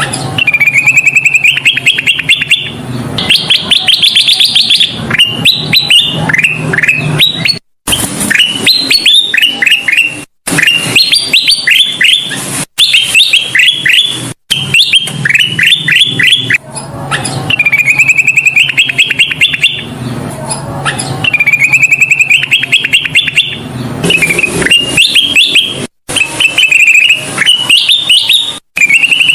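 Kutilang emas (a bulbul) singing loud, busy song: phrases of quick chirps and short rattling trills, one after another, with a faint low hum beneath. The song is broken several times by brief cuts of dead silence in the recording.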